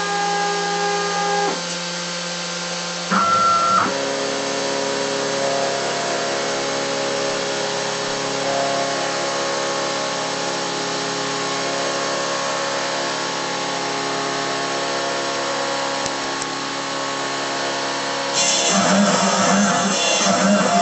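CNC router milling 10 mm plywood: a steady machine whine made of several tones that shift in pitch a couple of times in the first few seconds as the motors change speed, then hold steady. Guitar music comes in near the end.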